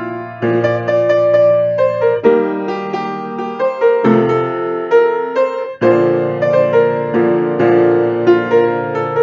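Piano playing an accompaniment: steady rhythmic chords under a melody line, with the harmony changing every second or two.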